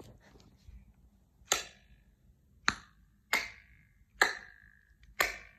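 Five sharp handclaps, roughly a second apart. Each is followed by a short ringing, buzzing tail as the sound bounces back and forth between the walls. This is a flutter echo, which sounds like a spring going "boing, boing, boing".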